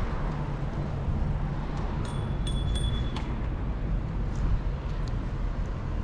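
Steady rumble of wind and open-air ambience. A brief high ringing tone, with a few light clinks, sounds about two seconds in.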